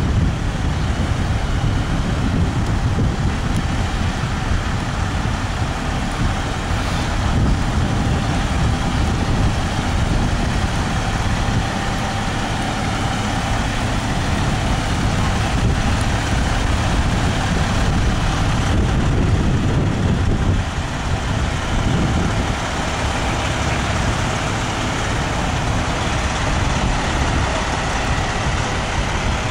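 Fire trucks' diesel engines idling on scene, a steady low rumble.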